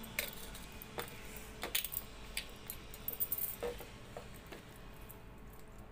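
Scattered light clicks and clinks of fingers and bangles against a steel plate as a tomato is crushed by hand, thinning out towards the end.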